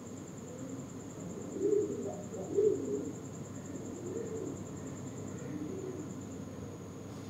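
Pigeons cooing in the background, with the loudest coos about two and three seconds in, over a faint steady high-pitched whine.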